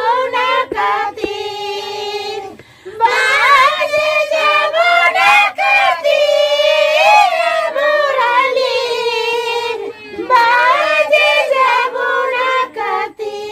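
A group of women singing a Tharu jhamta folk song of the Jitiya festival together, in long held lines with short breaks between them.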